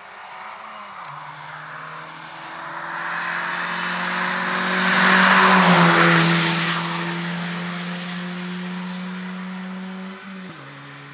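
A rally car approaching and passing at speed, its engine and tyre noise building to a peak about five or six seconds in, then fading as it goes away.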